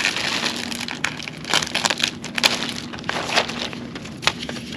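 Packaging being handled, with irregular crinkling and crackling over a faint steady hum.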